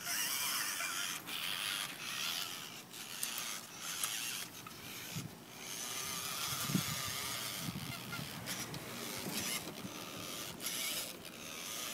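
A cheap toy radio-controlled truck's small electric motor and gears whirring in repeated short bursts, stopping and starting as it pulls against a dog in a tug of war. A few short low growls come through around the middle.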